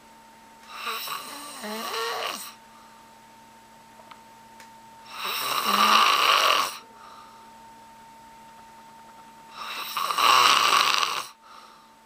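A man snoring loudly through an open mouth: three long snores about four seconds apart, each lasting a second or two, the last one cutting off sharply.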